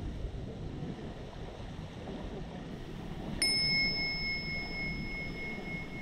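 A small bell struck once about three and a half seconds in, a clear ring that fades slowly over about three seconds, over a steady low rush of surf and wind on the microphone.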